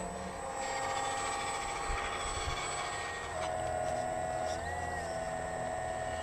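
Hydraulic pump of a radio-controlled Liebherr 946 scale excavator whining steadily as it works the boom and a loaded bucket. The pitch drops about three seconds in and bends up and back down about five seconds in as the load changes. Low wind rumble on the microphone.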